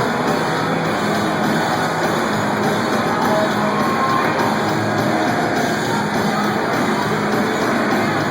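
Live garage rock band playing electric guitar music, loud and dense without a break.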